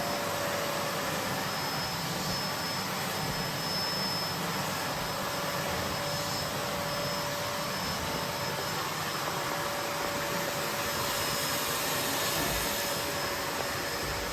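Bosch BGS21X320 bagless vacuum cleaner running steadily: a rush of air with a faint constant whine.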